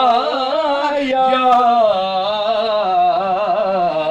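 A man singing a naat in classical style, drawing out long held notes with quick wavering ornaments, the melodic line stepping down in pitch.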